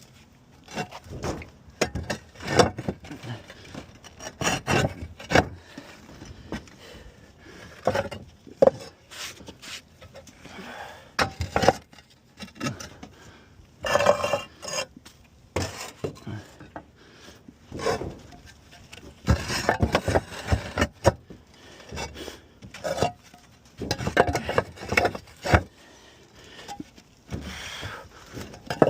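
Roof tiles being handled and slid back into place, scraping and knocking against one another in irregular bursts.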